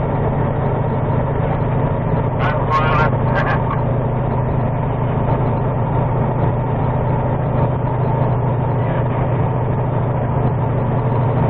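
Semi-truck diesel engine running steadily under load, heard from inside the cab. A brief higher-pitched, voice-like sound comes about two and a half seconds in.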